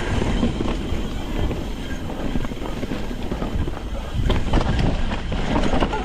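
Cannondale Scalpel full-suspension mountain bike rolling fast down a dirt trail: steady tyre roar over dirt with the rattle and clatter of the bike over bumps, with a few sharper clatters near the end.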